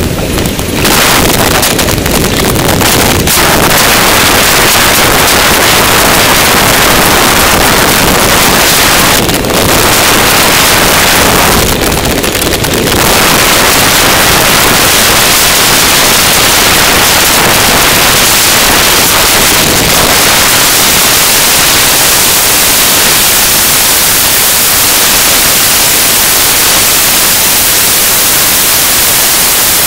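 Loud, steady wind noise buffeting the microphone of a camera moving fast along a trail, an even hiss that briefly drops in the upper range about nine and twelve seconds in.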